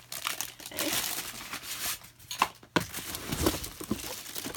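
Shredded-paper box filler and plastic wrapping crinkling and rustling as a hand rummages through a packed box and lifts out a cardboard product box, with a short pause about two seconds in.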